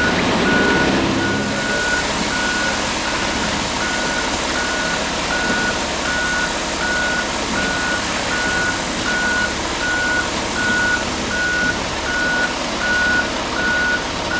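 Concrete mixer truck's backup alarm beeping steadily, about twice a second, over the constant running of the truck's engine as it pours concrete down its chute.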